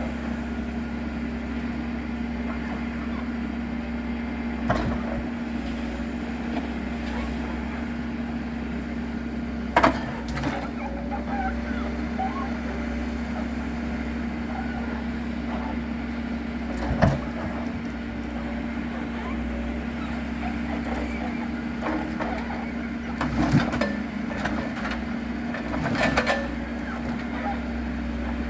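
HSM 208F forwarder's diesel engine running at a steady hum while its crane loads logs, with five wooden knocks as logs strike one another and the load bunk, the sharpest about ten and seventeen seconds in.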